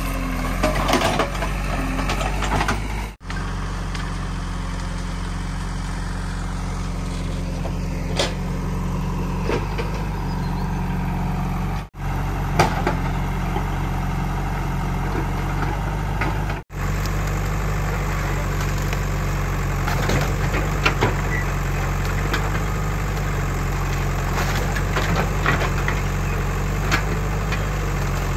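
JCB 3DX backhoe loader's Kirloskar diesel engine running steadily while the backhoe bucket digs through uprooted drumstick tree roots and brush, with scattered sharp cracks and snaps of wood. The sound drops out suddenly and briefly three times.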